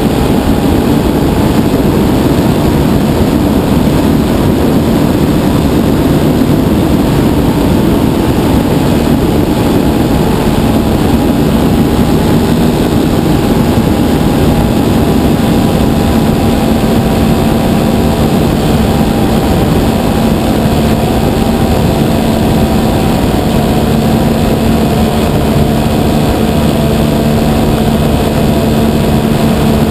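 The engine and propeller of a 60% scale RC Piper Cub running steadily in flight, heard close up from a camera mounted on the aircraft.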